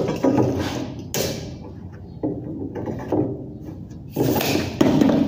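Steel reinforcing bar being bent by hand into a stirrup: a series of sharp clanks, about seven in all, each ringing briefly as the bar and bending tool knock together.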